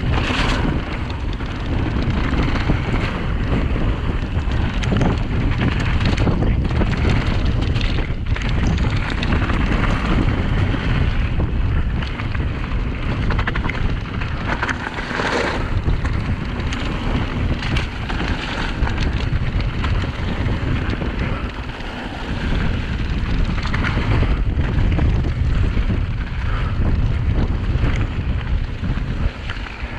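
Wind buffeting an action camera's microphone as a YT Decoy mountain bike descends fast over a wet gravel trail. Tyres rumble on loose stones and the bike rattles, with sharp knocks over rough ground a few times.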